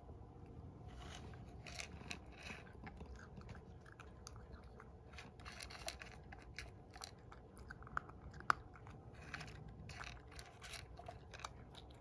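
A cat crunching and chewing small dry treats from a bowl: a faint, irregular run of crunches and clicks, with a couple of sharper clicks about two-thirds of the way through.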